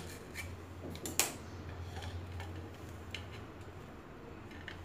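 Knife clicking and scraping against a ceramic plate while a toasted sandwich is cut and its halves are moved, with one sharper clink about a second in. A faint steady low hum runs underneath.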